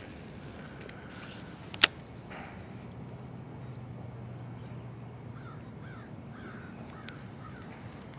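Canada geese honking: a short run of faint calls in the second half. A single sharp click about two seconds in is the loudest sound.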